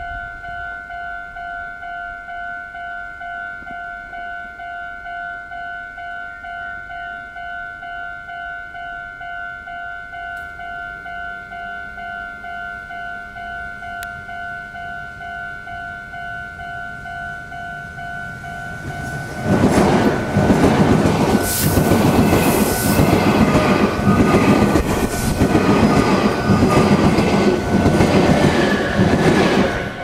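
Japanese level-crossing warning bell ringing in a steady repeating beat. About 19 seconds in, a Meitetsu 1700 series and 3100 series electric train passes through at speed, its wheels clattering rhythmically over the rail joints and drowning out the bell until just before the end.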